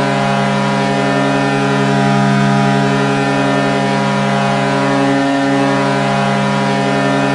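Hockey goal horn sounding one long, deep, steady blast at a constant pitch.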